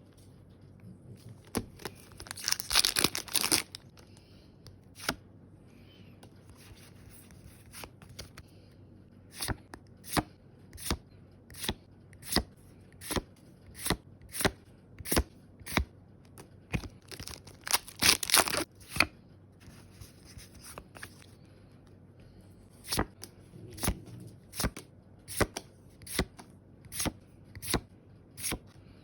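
Foil Pokémon booster packs being torn open, two bursts of crinkly ripping about a second and a half long, one near the start and one about halfway through. Between and after them, a run of sharp separate clicks, roughly one or two a second, as the cards are flicked through one by one.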